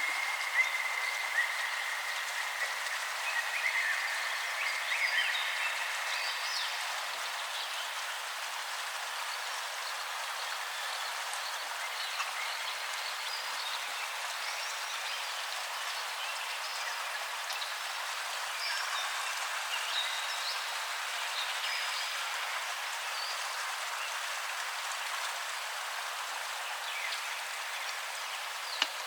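Background nature-sound recording: a steady hiss like rain or running water with scattered short, high chirping calls, a little busier in the first few seconds, and one sharp click near the end. The recording has no bass.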